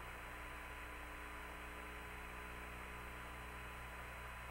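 Steady electrical hum and faint hiss on the Apollo 16 air-to-ground radio audio, with a few fixed steady tones under it.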